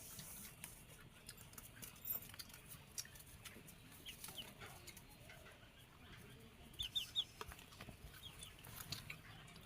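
Faint bird calls: short high chirps, three in quick succession about seven seconds in, among scattered small clicks.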